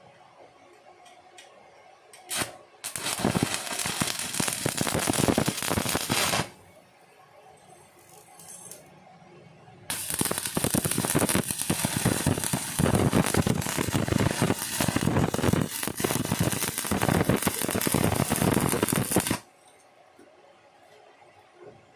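Electric welding arc crackling and sputtering in two runs, one of about three and a half seconds and a longer one of about nine seconds, as test welds are laid with the new welding machine. A short sharp click comes just before the first run.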